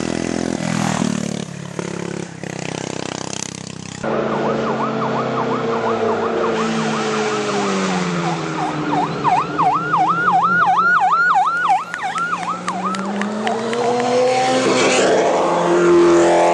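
A racing kart's engine running hard as it passes on the climb. After a cut about four seconds in, an engine's revs fall and rise slowly, under a fast, repeating siren-like wavering tone that is loudest in the middle.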